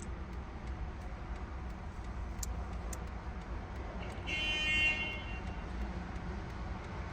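Steady low hum with two light clicks, then a short horn toot, under a second long, about four seconds in.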